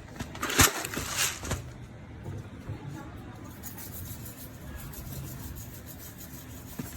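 A short cluster of loud rustling and scraping handling sounds, about half a second to a second and a half in, followed by a low steady background.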